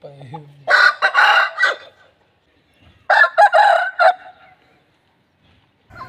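Aseel rooster crowing twice: two harsh, loud crows about two seconds apart, each lasting about a second.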